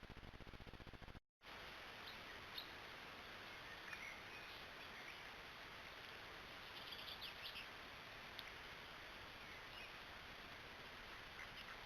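Faint, short bird chirps scattered over a steady background hiss, with a brief flurry of them about seven seconds in. A low buzzing hum before them stops abruptly about a second in.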